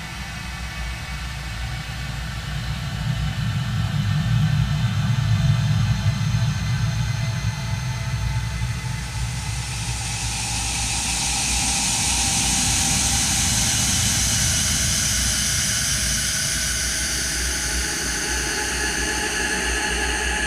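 A woman's coughing fit slowed down about twenty-four times, smeared into a long, low rumbling drone that swells and fades. About halfway through, a hiss comes in high up and holds.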